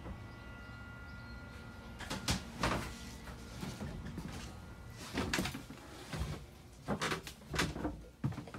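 A steady low hum, then a run of irregular knocks and thumps as someone climbs down into a boat's cabin and handles the doors and woodwork.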